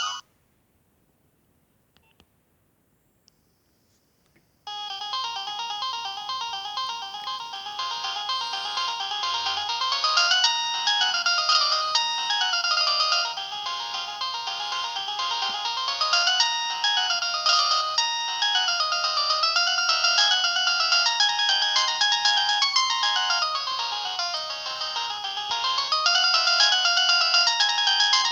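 Nokia 6070 ringtone: a synthesized tune of several voices with quick rising and falling runs of notes, starting about four and a half seconds in after a silence.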